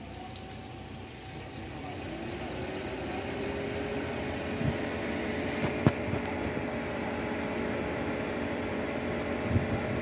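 A vehicle engine idling, its hum growing louder and rising slightly in pitch over the first few seconds, then holding steady. A single sharp click a little before the middle.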